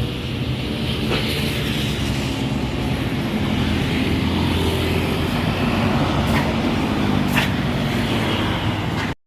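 Bus engine running amid road traffic, with a steady low rumble that grows stronger about halfway through and a few faint clicks. The sound cuts out abruptly just before the end.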